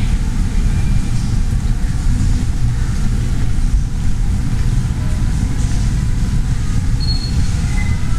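Steady low rumble of background noise in a large, nearly empty airport terminal hall, with a couple of faint brief high tones near the end.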